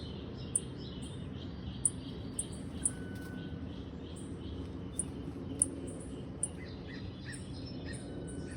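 Small bird chirping: short, very high-pitched chirps at irregular intervals, over a steady low background noise.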